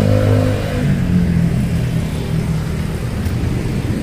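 Street traffic: motor vehicle engines running as they pass close by, one engine loudest in the first second, over the steady rumble of the road.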